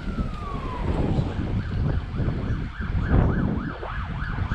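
Emergency vehicle siren: a slow wail falling away over the first second, then a fast yelp of about four rises and falls a second, over a low rumble.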